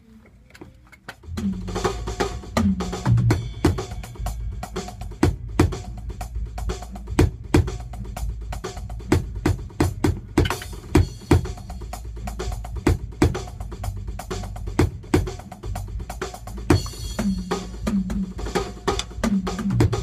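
Electronic drum kit played in a steady groove of kick, snare and cymbals, starting about a second in, with tom fills running down in pitch near the start and again near the end.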